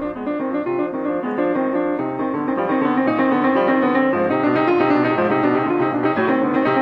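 Piano music, a steady flow of notes.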